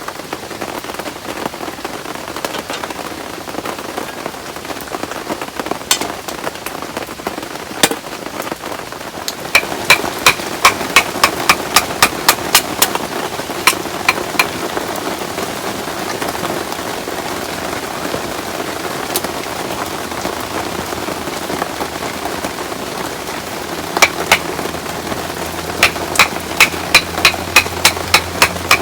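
Heavy rain falling steadily. About a third of the way in, and again near the end, come runs of sharp, ringing metallic hammer strikes, about three a second.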